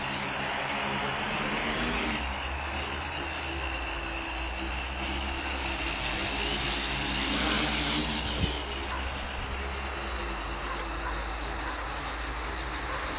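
X525 quadcopter's four Turnigy 750KV brushless motors spinning 11-inch APC SlowFly propellers, a steady hum as it hovers low and then climbs.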